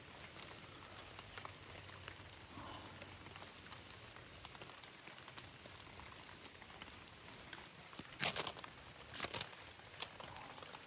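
Rain pattering steadily, with scattered individual drops ticking. Two short, louder rushes of noise come about a second apart near the end.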